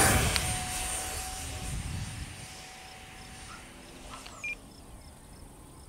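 Twin 50 mm 12-blade electric ducted fans of an RC A-10 Warthog jet whining at full throttle on a fast pass. The whine drops in pitch as it goes by, then fades steadily as the jet climbs away.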